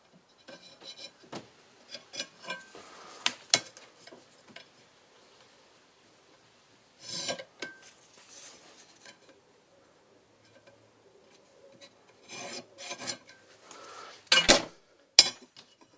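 Intermittent scraping and rubbing of hand work on a steel plate, in short strokes with pauses between them, then two sharp knocks near the end.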